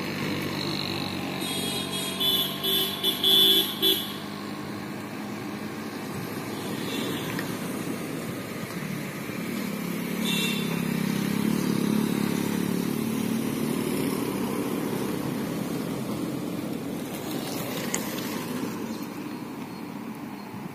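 Vehicles driving round a hill-road hairpin bend: an auto-rickshaw's engine running, a vehicle horn tooting about five short times between two and four seconds in, then the engines of an SUV and a motorcycle passing, loudest about halfway through.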